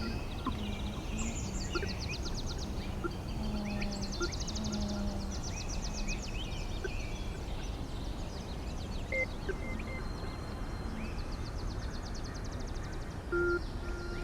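Layered ambient sound-art mix of rapid high chirping trills and scattered bird-like calls over a low hum that comes and goes in short stretches.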